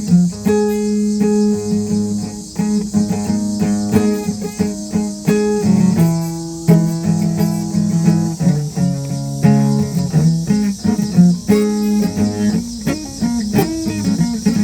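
Guitar being played: a continuous run of plucked notes and chords, with a steady high hiss underneath.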